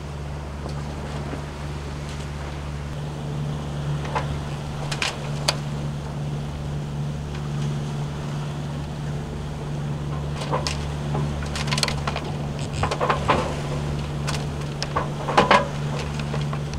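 Steady low drone of the boat's engine running under way, with light wind hiss and a few brief clicks and knocks scattered through it.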